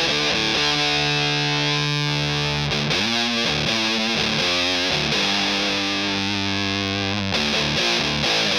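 Electric guitar played through a Hydra Fuzz pedal, a clone of the three-knob Tone Bender built with AC125 germanium transistors, giving a thick distorted fuzz. Chords are held and left to ring twice, with a wavering, bending passage between them about three seconds in and quicker notes near the end.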